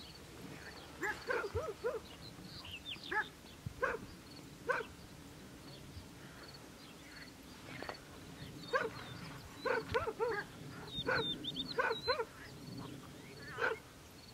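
Short, yelping animal calls come in scattered groups, each one brief. A faint high chirp repeats at an even pace behind them.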